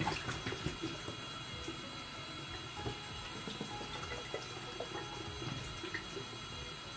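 Water running steadily from a kitchen tap, filling the hamster's water bottle.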